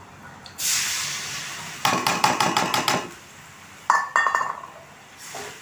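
Ground masala tipped from a steel bowl into hot oil in a kadhai. A sudden sizzle starts about half a second in and fades over a second. A quick run of metallic clinks and scrapes follows as the bowl is emptied against the pan, then a single ringing clink as the steel bowl is set down.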